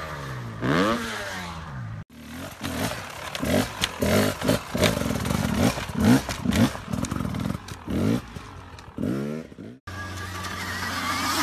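Dirt bike engines revving across a few abrupt cuts. First a rev that drops and climbs again, then a run of quick throttle blips rising and falling in pitch, then a bike running steadily and getting louder near the end.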